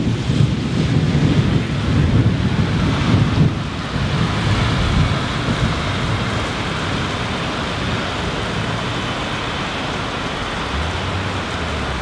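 Heavy thunderstorm rain pouring steadily, an even hiss. A low rumble runs under it for the first three or four seconds and then dies away.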